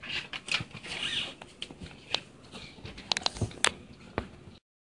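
Scattered light clicks and rustling handling noise, with no engine running, cutting off abruptly to silence near the end.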